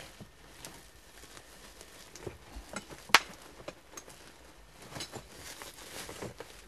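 Items being handled and shifted in a plastic toolbox: scattered light clicks and knocks, with one sharp click about three seconds in.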